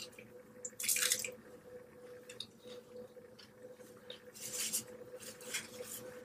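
A few short wet smacking and slurping mouth sounds while eating, about a second in and again near the end, over a faint steady electrical hum.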